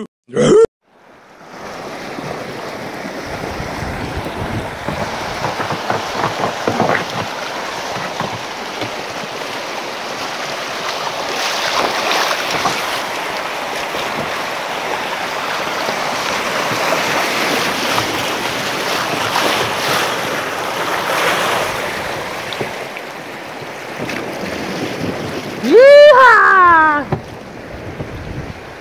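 Steady rush of water churning through muddy river rapids, swelling in the middle, with wind on the microphone. Near the end a brief loud voice-like call cuts through.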